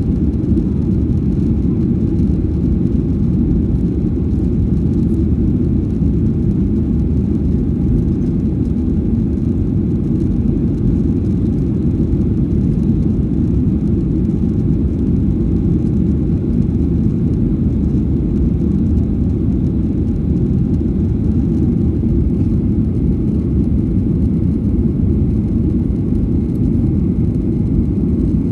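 Airplane cabin noise heard from a window seat: a steady low rumble of engines and airflow that does not change.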